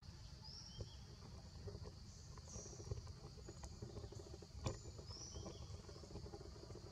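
Forest ambience: a steady high drone of insects with a short chirping call that repeats every two to three seconds, over a low rumble. A few sharp clicks or snaps, the loudest about two-thirds of the way through.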